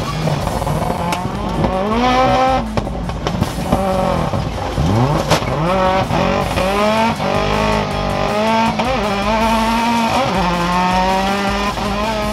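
Turbocharged four-wheel-drive Honda Civic Type R rallycross car's engine, heard from on board under hard racing. It revs up and drops back again and again as it shifts gears, with one sharp rise about five seconds in.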